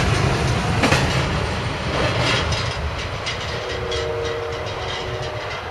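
Double-stack intermodal freight train rolling past: wheels clicking over rail joints and the cars rumbling, fading as the tail end goes by. From about three and a half seconds in, a train horn chord sounds in the distance for under two seconds.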